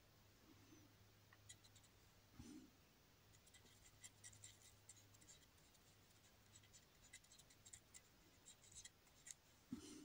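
Near silence with faint, scattered scratchy ticks of a thin paintbrush stroking over a canvas, blending wet acrylic paint. A faint low hum sounds under it for the first half or so.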